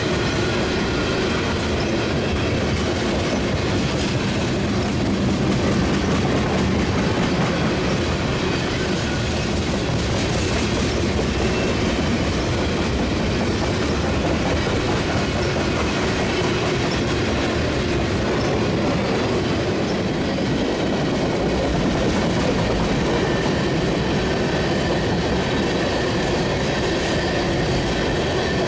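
Freight train's tank cars rolling past at steady speed: a continuous rumble with the clickety-clack of steel wheels over the rails, and a faint wheel squeal.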